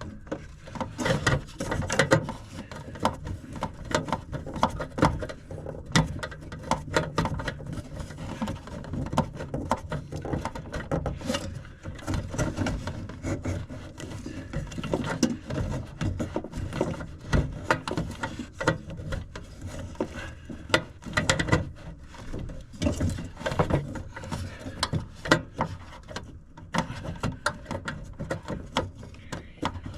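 Hand-tool work on a gas furnace's sheet-metal cabinet: many small clicks, rattles and scrapes of a driver, screws and parts being handled, while the failed hot surface igniter is taken out.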